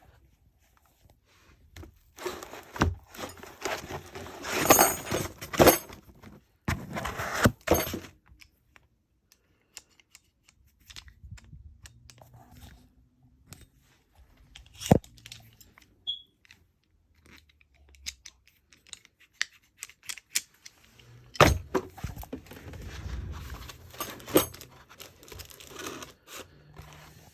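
Handling noise from a brake caliper compressor tool kit: metal parts knocking and clinking, with stretches of rustling and scraping, and a few sharper knocks scattered through.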